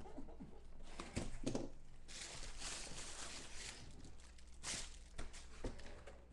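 Rustling and crinkling of a plastic-wrapped package as it is handled and set down on a cardboard box, with a few light knocks of the box.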